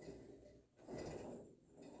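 Faint sliding and rubbing of a home gym's cable over its pulleys and weight stack during a cable pulldown rep, swelling once about a second in.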